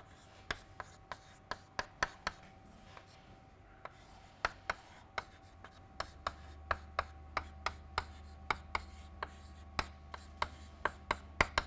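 Chalk writing on a chalkboard: a string of sharp taps, about three a second, with faint scratching between them as symbols are written.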